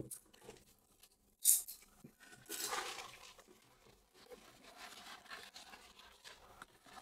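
Packaging of a replacement joystick kit being opened and handled: plastic rustling and small clicks, with a short, sharp crinkle about one and a half seconds in and a longer rustle soon after.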